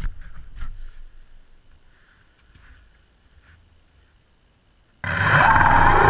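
Faint knocks and hiss at first. About five seconds in, the motor and rotor blades of a camera-carrying model aircraft start abruptly and run up to a loud whine made of several tones, some rising in pitch.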